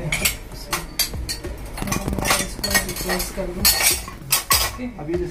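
Stainless steel tumblers, glasses and ceramic cups clinking against one another as they are arranged in a dishwasher's top rack: irregular sharp clinks, loudest in clusters around the middle and near the end.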